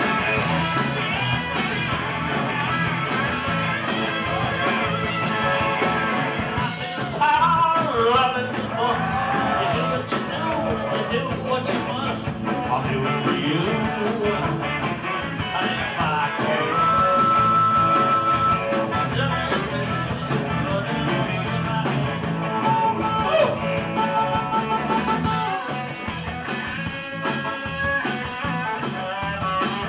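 Live blues-rock band playing an instrumental break: electric guitars, bass, drums and keyboards, with a harmonica lead that bends notes and holds one long high note about halfway through.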